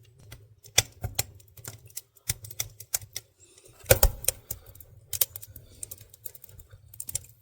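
Wood fire crackling, with irregular sharp pops and snaps and a loud pop about four seconds in.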